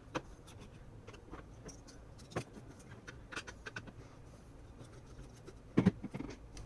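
Small scattered clicks and taps of a Phillips screwdriver and fingers working screws out of the underside of a graphics card, with a louder clatter of knocks near the end.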